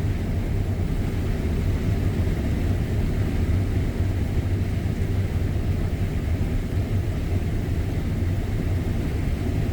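Combine harvester running steadily while harvesting corn, heard from inside the cab: a constant low drone.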